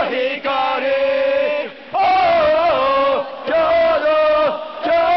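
Crowd of football supporters singing a player chant in unison, in short sung phrases with held notes and brief breaks between them.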